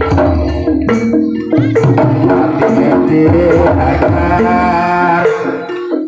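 Javanese gamelan-style accompaniment for a barongan dance: hand drums beating a busy rhythm with metallophone notes and a wavering melodic line over them. The music breaks off briefly just before the end.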